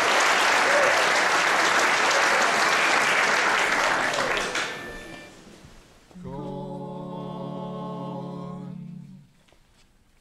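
Audience applauding, dying away about five seconds in. After a short hush, a steady pitch is held for about three seconds, a barbershop quartet taking its starting note before the song.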